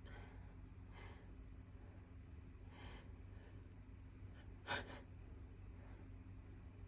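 A person's faint, sharp intakes of breath through an irritated nose, a few seconds apart, with one short, louder breath about two-thirds of the way through. These are the hitching breaths of a sneezing fit set off by a nasal swab test.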